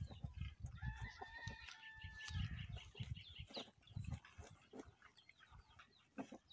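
A cow munching feed from a plastic trough: faint crunching clicks and low bumps at its muzzle. A rooster crows once in the background, a long held call from about a second in to about two and a half seconds.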